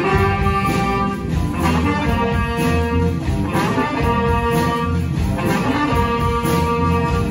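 A live jazz band playing: saxophones and trombone sound held notes over a rhythm section of electric guitar, piano, bass and drum kit, with a strong pulsing bass line.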